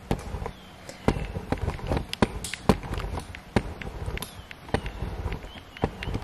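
Irregular knocks and clicks over a low rumble: handling noise from a handheld camera being moved and gripped close to the body.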